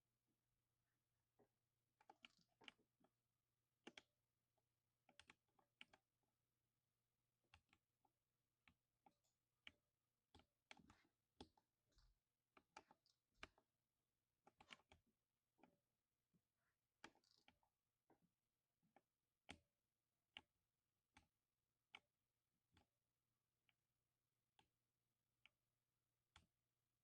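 Faint typing on a 60% mechanical keyboard with silver switches: irregular single keystrokes and short quick runs of keys, each a sharp click.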